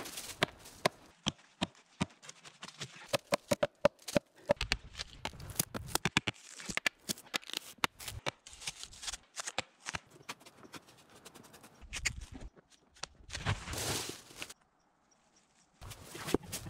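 Irregular clicks, taps and crackles of hands-on woodwork in a forest: an axe prying and cracking a large sheet of bark off a fallen log, mixed with footsteps and rustling in dry leaves and sticks. There is a short near-silent gap shortly before the end.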